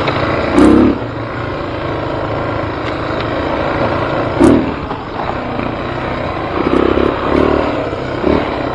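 Off-road vehicle engine running steadily while riding a rough dirt trail, with several short heavy thumps from the ride: one under a second in, one around four and a half seconds, a cluster around seven seconds, and another near the end.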